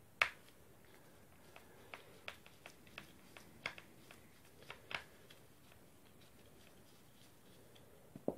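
A screwdriver clicking and ticking against screws in a cordless SDS drill's motor housing as they are turned out: one sharp click just after the start, a string of lighter irregular ticks over the next five seconds, then two clicks near the end.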